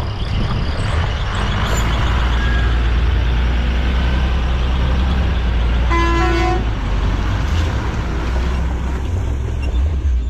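Steady low engine and road rumble heard from inside a vehicle on a rough dirt road. About six seconds in, a vehicle horn gives one short toot that steps up in pitch partway through.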